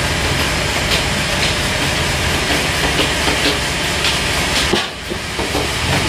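Toyota forklift engine running steadily with a loud rumble and hiss. It dips briefly about five seconds in.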